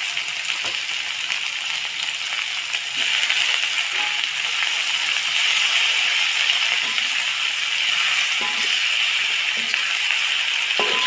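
Steady frying sizzle from genjer (yellow velvetleaf) leaves stir-frying with the spice paste in a metal wok, stirred with a steel spatula. The sizzle gets a little louder about three seconds in, with a few faint scrapes of the spatula.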